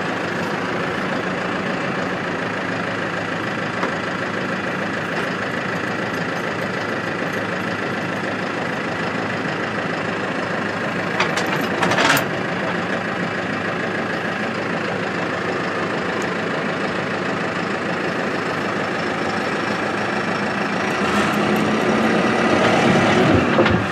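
Large farm tractor's diesel engine running steadily while it pulls on a chain to spring a scraper pan's bent sideboard. Two sharp clanks come about eleven and twelve seconds in, and the engine grows louder near the end.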